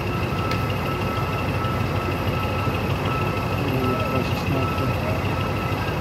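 Shantui SD22E crawler bulldozer's diesel engine running at a steady, loud rumble, with a steady high-pitched whine over it.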